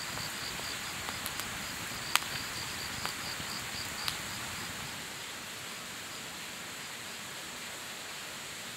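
Firewood burning in an open fire pit, crackling with a few sharp pops, the loudest about two seconds in. Insects chirp in a steady high pulse behind it, fading after about four seconds.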